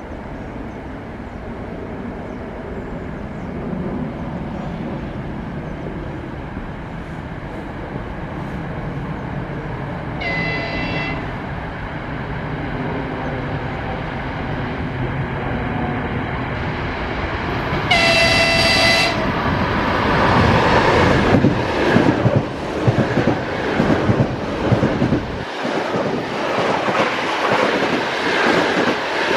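ED4M electric multiple unit approaching with a steady, growing rumble and sounding its high-pitched horn twice, a short toot and about eight seconds later a longer one. It then passes at speed with a loud rush of air and clattering wheels on the rails.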